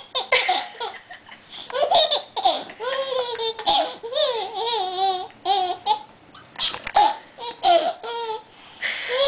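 A small child laughing in repeated bursts of high-pitched giggles, breaking off and starting again.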